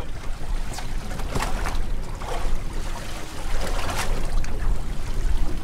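Wind rumbling on the microphone and water lapping against the hull of a small boat drifting at sea, with a few short clicks.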